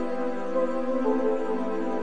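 Soft new-age background music of sustained, slowly changing tones, with no sharp sounds.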